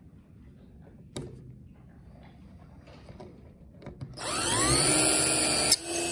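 Cordless drill with a countersink bit boring a pilot hole in MDF: the motor whines up to speed about four seconds in and then runs steadily, with a brief dip under load near the end. Before it starts there is a quiet pause with a single click about a second in.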